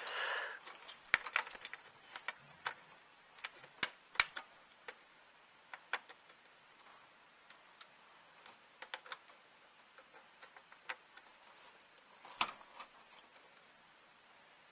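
Irregular small clicks and taps of plastic cable connectors and cables being handled and pushed into place inside a steel computer case, with one louder click near the end.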